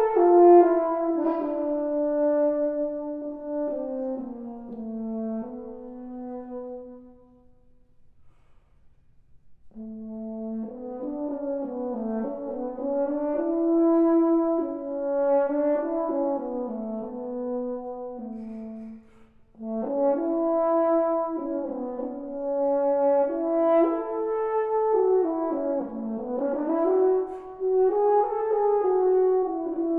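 Unaccompanied French horn playing slow melodic phrases. The first falls away and dies out about seven seconds in; after a pause of a couple of seconds a new phrase begins, and another starts after a brief break near the twenty-second mark.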